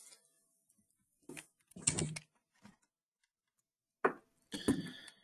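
A few faint, brief knocks and clicks scattered through a pause, the clearest about two seconds in and again near the end.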